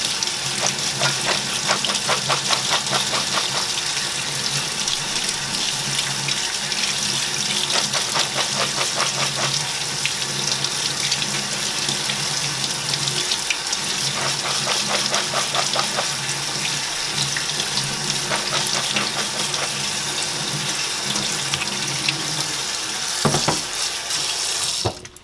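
Kitchen faucet running into a stainless steel sink, water splashing through a plastic colander of canned beans as a hand turns them to rinse them until the water runs clear. The water cuts off abruptly near the end.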